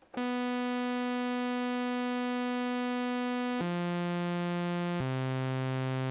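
Native Instruments Massive software synthesizer playing three steady, buzzy held notes in turn, each lower than the last, switching about a third of the way through and again about two-thirds in. Each note sustains at an unchanging level until the next one is played, because the envelope is in hold mode.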